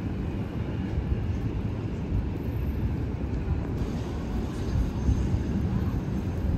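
Steady low rumble of a moving vehicle, even throughout with no distinct knocks or events.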